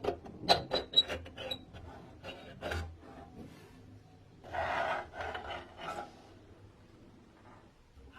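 Vintage coffee grinder being worked, rasping and crunching: a quick run of sharp clicks at first, then scattered strokes and one longer scrape about halfway through.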